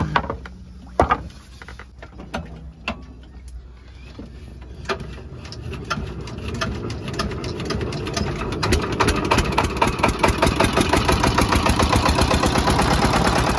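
Small diesel boat engine being hand-cranked: a few knocks and clicks at first, then it catches about five seconds in and speeds up into a fast, even chugging that gets louder until it runs steadily from about nine seconds.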